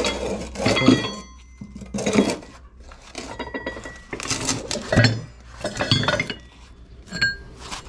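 Steel seed-drill coulter points clinking and knocking against each other as they are handled, in about six separate bursts of metallic clinks with brief ringing.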